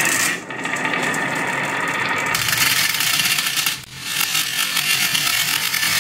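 Many glass marbles rolling and rattling down a wavy wooden marble-run slope, a dense steady clatter. It drops briefly about four seconds in, then resumes as another stream of marbles rolls down and into a toy dump truck's bed.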